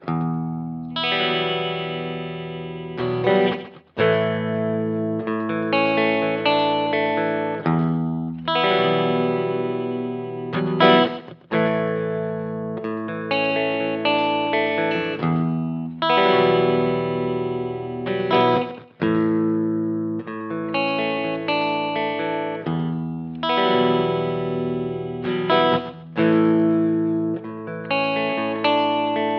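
Guitar chords struck and left to ring on the Eagletone AL-630G, with a new chord every one to four seconds and a slightly distorted, effected tone.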